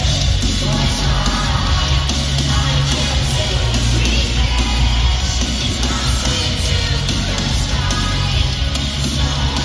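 Live pop-punk rock band playing loud through an arena PA, with heavy bass and a singer's voice over the band, and crowd noise mixed in.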